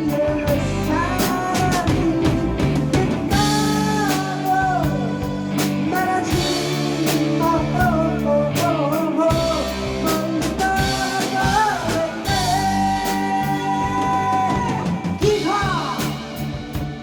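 A rock band playing a sad ballad: drum kit, bass, guitars and keyboard, with a melody line that bends in pitch over the top.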